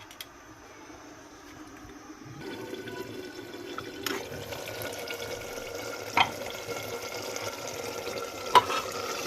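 Soybean keema and potato curry cooking in a pan, a steady hiss of simmering and frying that sets in a couple of seconds in, with a few short clinks.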